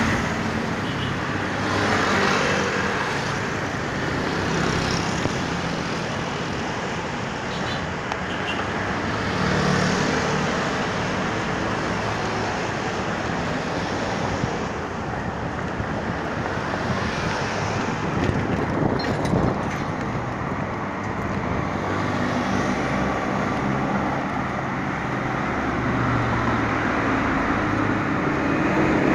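Road traffic on a wide multi-lane road: cars, trucks and motorcycles passing one after another in a steady wash of engine and tyre noise. It swells several times as vehicles go by close.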